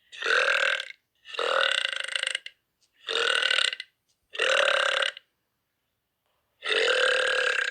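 Girls burping: five long belches in a row, each about a second long with dead silence between them, the last the longest.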